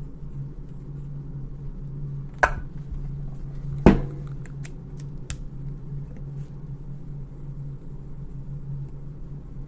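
Hand tools and rifle parts clicking while the stock-block bolt is being loosened: two sharp metal clicks a second and a half apart, the second the louder, then a few lighter ticks. A steady low hum runs underneath.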